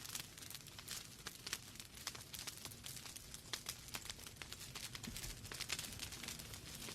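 Wood fire crackling in a fireplace: many small, irregular snaps and pops of burning logs over a low rumble of the flames.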